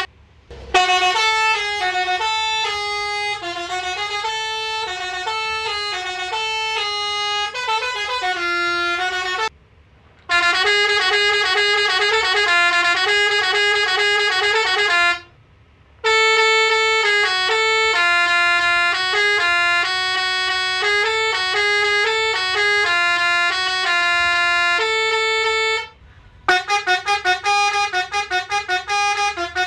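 MSK Road Master RM-615 24-volt musical air horn playing its melodies: several tunes in a row, each a sequence of sustained horn notes, separated by brief silences. The last tune is a quick run of short repeated notes.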